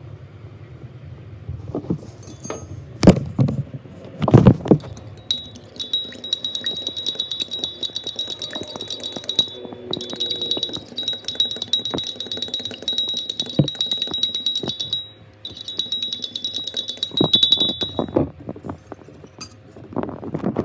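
Metal fork beating an egg in a ceramic mug: fast, steady clinking against the mug's sides in three runs with short pauses between them, after two loud knocks a few seconds in.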